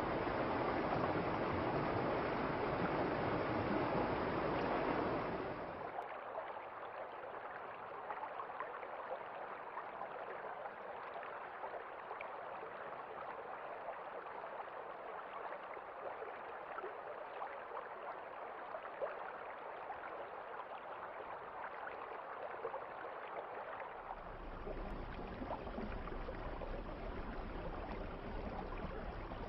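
Flowing river water, a steady rushing. It turns quieter and loses its low rumble abruptly about six seconds in, and the low rumble comes back near the end.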